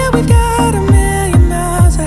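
Electronic pop music with a heavy kick drum beating about twice a second under a held melody line that steps downward.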